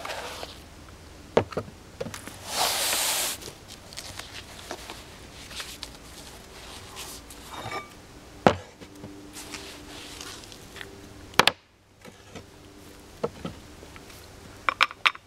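Parts of a collapsible NEF Survivor single-shot shotgun being unpacked and handled: a loud rasp of the soft carry case being opened about three seconds in, scattered knocks of the stock and barrel against a plywood board, and a quick run of metal clicks near the end as the barrel snaps onto the receiver.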